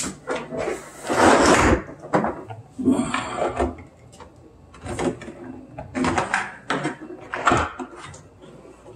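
A built-in stainless dishwasher being shoved into its cabinet opening: an irregular series of scrapes and knocks as its body rubs and bumps against the cabinet, then its door is pulled open near the end.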